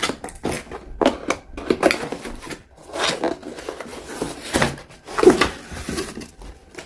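Packaging and lamp parts being handled: cardboard and plastic rustling with short knocks and clicks.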